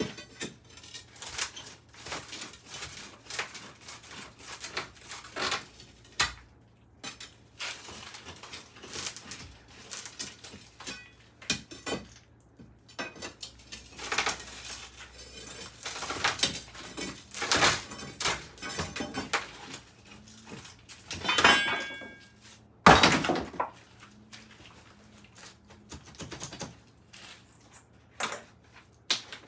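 Irregular metallic clanks, knocks and scraping as broken-up concrete from a shower floor is pried loose and moved by hand and tool, with a couple of louder ringing clanks about three quarters of the way through.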